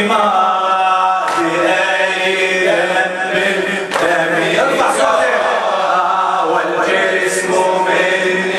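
Men's voices chanting a Shia Muharram latmiya lament in Arabic, with long held notes. A couple of sharp hand slaps come through, about one and four seconds in.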